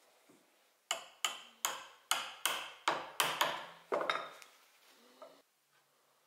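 A wood chisel being driven into a hardwood board by about nine sharp blows in quick succession, roughly two to three a second, chopping out a notch.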